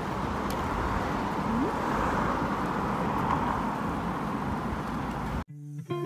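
Steady road traffic noise, a continuous outdoor hum of passing cars, that cuts off suddenly near the end.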